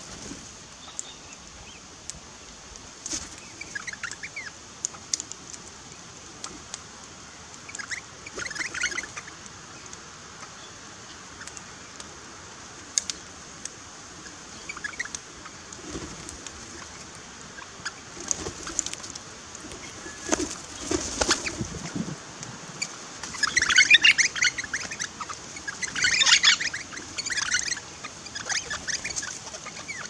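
Crimson rosellas and Australian king parrots calling in short, scattered bursts that come thicker and louder in the last third, with wing flaps as birds land and take off.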